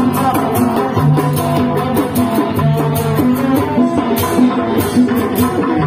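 Loud Sundanese reak street procession music: hand-held drums beaten in a steady rhythm under a melody of held notes that step from pitch to pitch, with regular sharp high hits.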